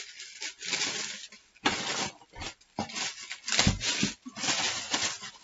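Thin plastic bag crinkling and rustling in irregular bursts as hands work it off a printer, with a dull knock about two-thirds of the way through.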